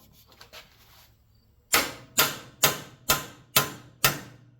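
Hammer striking a steel punch six times in quick succession, a little over two blows a second, driving a press-fit steel insert out of a copper block from a motor starter. A few light clinks of the tools being set come before the blows.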